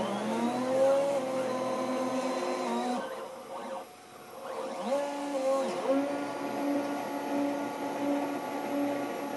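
A DIY CNC mill milling aluminium: its spindle motor and stepper motors whine in several pitched tones that glide up and down as the axes speed up and slow down. The sound drops for a couple of seconds near the middle, then picks up again.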